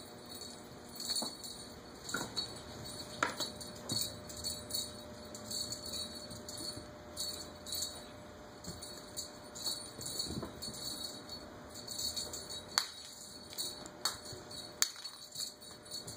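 A small bell jingling in short, irregular shakes as a cat moves about, with a few sharp clicks among them.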